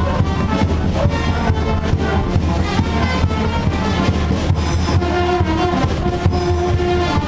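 Background music with a steady beat; a held note comes in about five seconds in.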